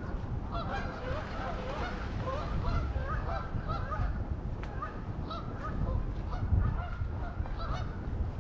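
A flock of geese honking, with many short calls overlapping several times a second, over a steady low rumble.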